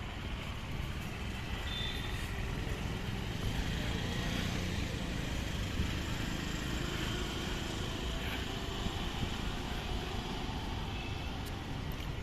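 Road traffic going by at street level: a steady rumble of passing cars and other motor vehicles.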